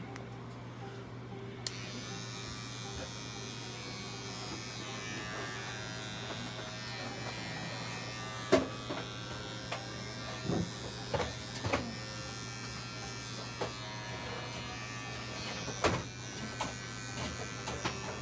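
Cordless electric pet clippers buzzing steadily as they shave a dog's belly fur before surgery; the buzz grows brighter about two seconds in. A few sharp knocks come in the second half.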